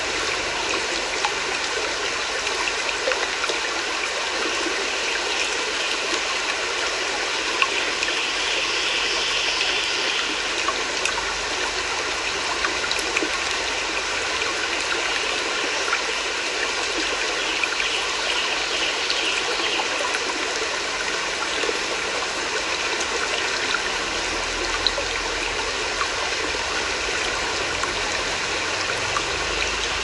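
Shallow rocky stream flowing steadily over stones, with many small splashes.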